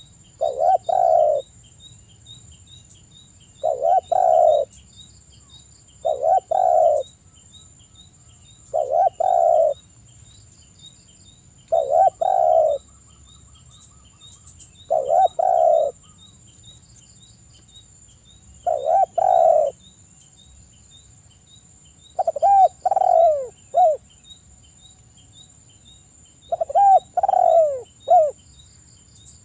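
Spotted dove (tekukur) cooing its phrase nine times, one phrase about every three seconds; toward the end the phrases break into separate notes. Faint regular high chirping and a steady high insect-like drone go on behind it.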